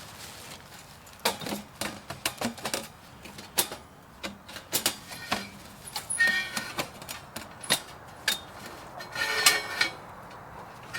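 Camp gear being handled: irregular light knocks and clicks, with a short metallic clink about six seconds in and another ringing clatter about nine seconds in.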